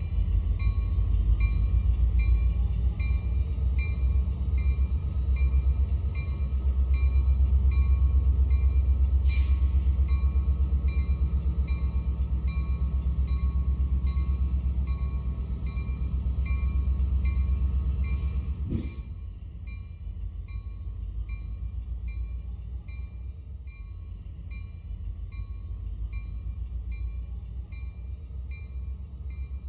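Train running on the track: a heavy low rumble with a faint, evenly spaced ticking above it. About two-thirds of the way through the rumble drops off suddenly and goes on more quietly.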